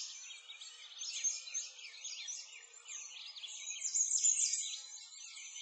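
A dense chorus of many small birds chirping and twittering at once, a continuous tangle of quick high-pitched calls.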